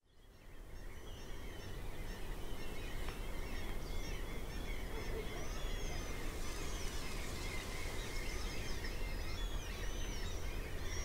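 Several birds chirping and calling in short rising and falling notes over a steady low rumble. The sound fades in over the first second or so.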